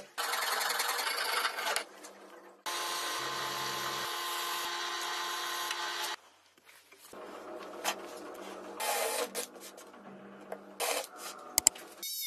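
A file rasping against the edge of a hole in a metal plate in quick strokes, then a power tool motor running steadily for about three and a half seconds. In the last few seconds a cordless drill bores into plywood in short runs.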